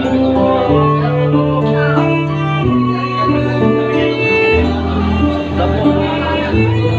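Violin and acoustic guitar playing together: a bowed violin melody of held notes over a strummed steel-string acoustic guitar.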